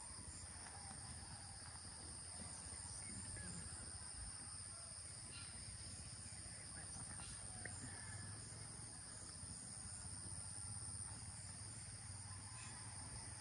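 A faint, steady chorus of insects chirring, holding two high pitches without a break, over a low rumble.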